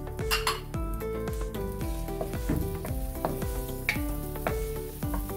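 Garlic frying in melted butter in a wok, sizzling as it is stirred with a wooden spatula, under background music.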